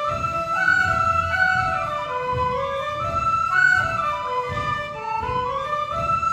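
A children's traditional Irish music group playing a tune together. Flute and fiddles carry a quick melody in stepping notes that repeats phrase by phrase, with banjo and button accordions alongside and a guitar strumming chords beneath.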